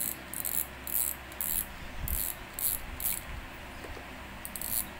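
Front drag knob of a Daiwa Regal LT1000D spinning reel being twisted by hand, its clicks coming in short ratcheting bursts about twice a second. The bursts pause after about three seconds, and one last burst comes near the end.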